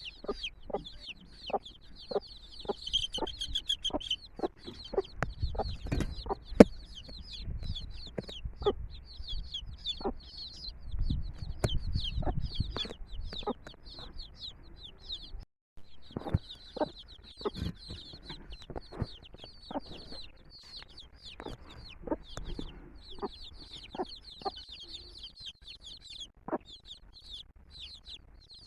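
A brood of chicks peeping continuously in rapid high chirps, with short low clucks from the mother hen among them.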